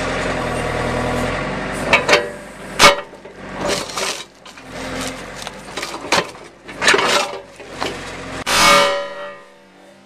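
Backhoe engine running steadily while its bucket crushes an iPad 3rd generation, with a series of loud cracks and crunches as the glass and aluminium casing give way. The engine hum cuts out near the end.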